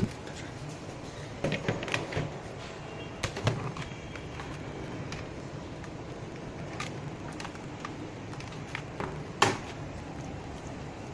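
Scattered sharp clicks and knocks, a cluster in the first few seconds and the loudest about nine and a half seconds in, over a steady low hum.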